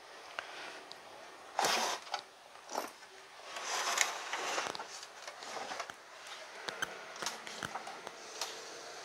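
Handling noise from hands working around a CRT TV set: a short scrape about two seconds in, a longer stretch of rustling and rubbing, then a few light clicks near the end.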